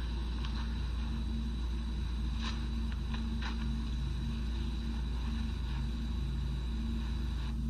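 Steady low electrical hum with a faint high whine, the background noise of the recording itself, with a few faint clicks about halfway through.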